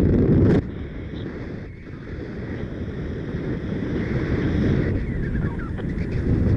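Strong wind buffeting the microphone of a paraglider in flight, a low rumbling noise. It drops suddenly about half a second in, then builds back up gradually.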